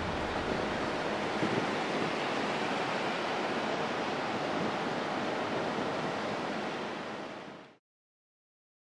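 Steady rush of wind and surf on a stormy coast, fading out about seven and a half seconds in.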